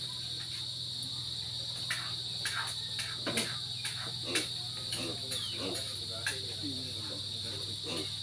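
A steady high trilling of crickets and other insects, with scattered sharp pops and crackles from the open wood fire roasting a whole pig on a spit.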